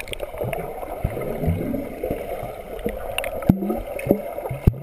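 Muffled churning and bubbling of pool water heard from under the surface as a child swims close by, kicking and stroking, with short bubbly gurgles and scattered sharp clicks.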